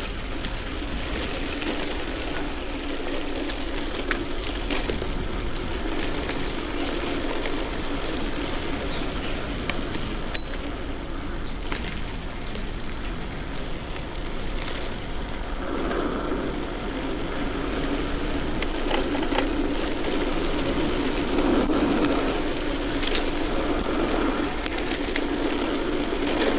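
Steady rolling noise of a bicycle ride, with wind on the microphone and tyres on the road, growing louder in the second half.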